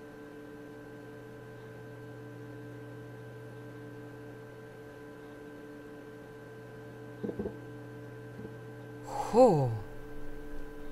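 Steady electrical hum with a few fixed tones, a brief double click about seven seconds in, and near the end one short, loud 'hoo!' from a human voice, falling in pitch.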